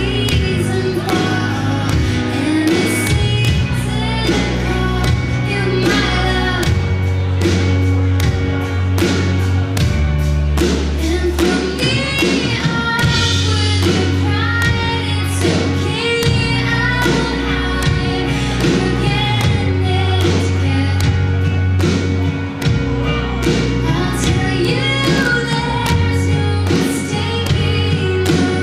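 Indie rock band playing live, with a woman singing the melody over electric guitars, bass and a steady drum beat.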